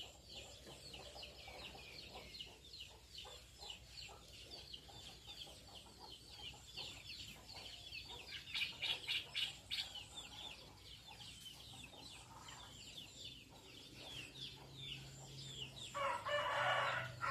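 Faint chirping of birds, many short falling calls in quick succession, with a louder, fuller call lasting about a second near the end.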